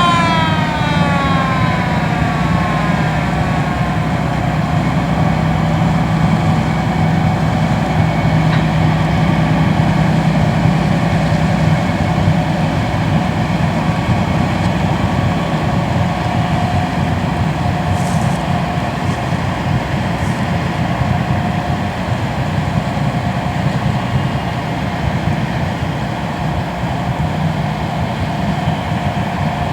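Steady low drone of boat diesel engines, as tugs tow a large dredging excavator-crane on the river. In the first couple of seconds a siren-like horn tone falls in pitch and dies away.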